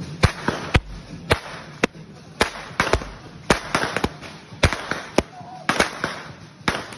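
Hand whips (chicotes) cracking again and again, sharp cracks coming about two a second in an uneven rhythm, some close together in pairs.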